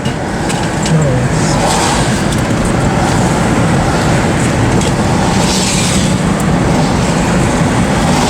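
Steady, loud rushing noise of a chase vehicle on the move, road and wind noise heard from inside, with a few faint clicks.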